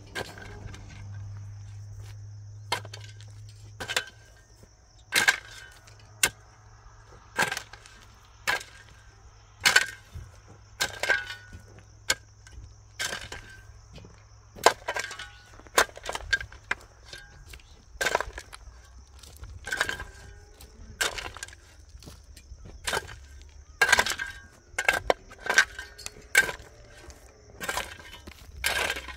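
A hand tool striking hard material over and over, roughly once a second at an uneven pace, each blow with a short ring.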